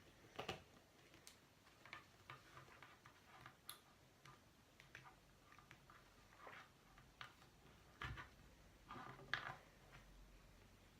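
Faint, irregular clicks and taps of small plastic toy parts being handled, with a louder few near the end.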